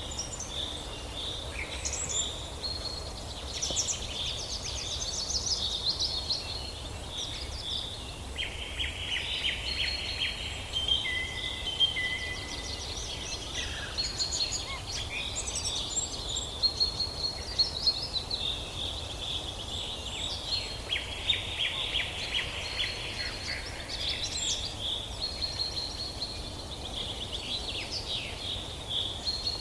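Several songbirds chirping, trilling and whistling over one another in a continuous forest chorus, over a low steady background rumble.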